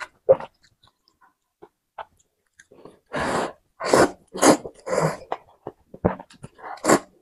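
Noodles in broth being slurped and chewed close to the microphone: one short sound at the start, a quiet stretch, then from about three seconds in a run of loud slurps, one to two a second.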